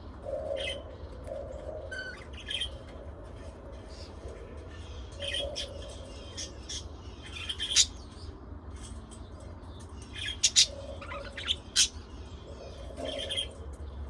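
Small pet parrots chirping and squawking in short, scattered calls, with a few sharp, loud squawks in the second half.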